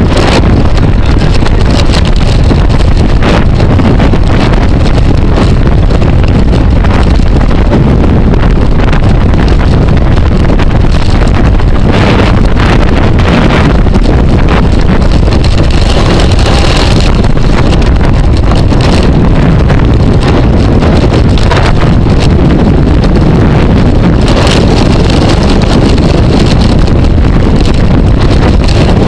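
Wind buffeting a camera microphone carried at bicycle racing speed: a loud, constant low roar.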